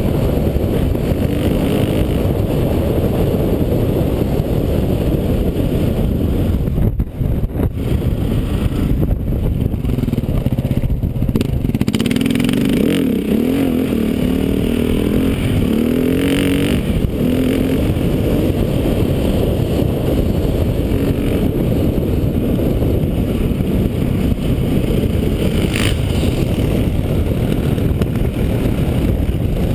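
Dirt bike engine running while riding a gravel trail, its pitch rising and falling as the throttle is opened and closed, with steady wind rush over the microphone.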